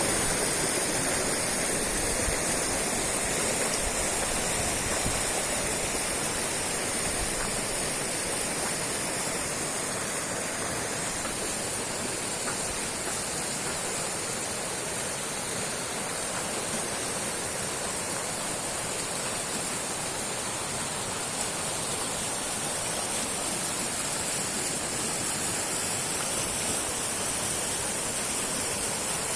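A fast river rushing, a steady roar of water.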